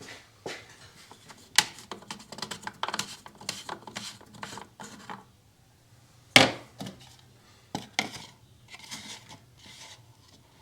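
Scattered clicks, taps and knocks of oil bottles and caps being handled to refill an engine with oil, with one louder knock about six seconds in.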